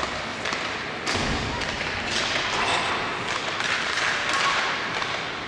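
Ice hockey play in a rink: a few sharp thuds and knocks of the puck, sticks and players against the boards and glass, over steady arena noise with faint voices.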